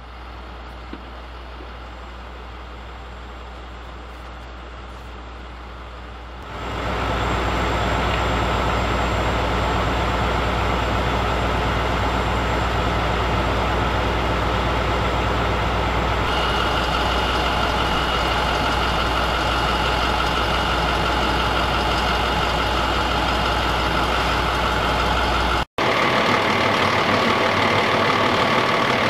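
Fire apparatus diesel engines idling steadily, growing louder about six seconds in, with an instant's dropout near the end.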